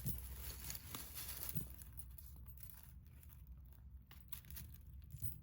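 Faint rustling and a few light clicks as costume jewelry is handled and sorted, over a steady low hum.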